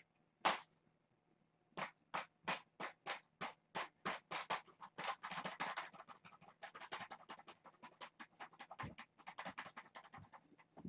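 Scratching and rustling as a colourful toy is rubbed and wiggled across a play mat. The strokes come about three a second at first, then turn faster and denser, and thin out near the end.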